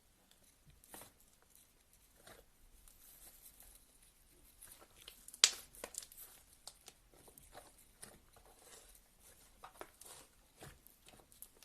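Slime being squeezed, stretched and poked by hand, giving irregular sticky crackles, clicks and pops, with one sharp snap about five and a half seconds in.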